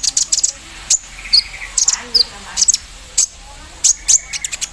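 Olive-backed sunbird (kolibri ninja) singing vigorously: a fast run of sharp, high chips and clicks broken by short upward-slurred notes and brief buzzy trills.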